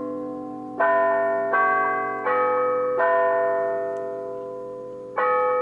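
Background music of slow, struck bell notes. Four notes come about three-quarters of a second apart, each ringing on and fading, then after a pause a fifth comes near the end.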